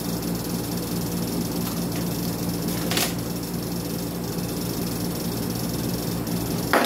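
Steady mains hum from the transformer of an automatic voltage regulator energised on 110 V input, a low buzz of evenly spaced tones over a faint hiss. A light click comes about three seconds in and a sharper click near the end, as test-meter probes touch the terminals.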